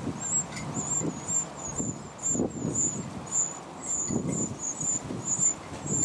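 Eurasian wren nestlings begging: a steady run of thin, very high-pitched cheeps, about two or three a second. Under them, low rumbling gusts of wind on the microphone.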